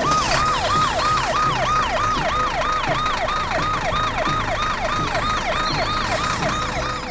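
Siren yelping: a quick rise and fall in pitch repeated about three times a second, steady throughout.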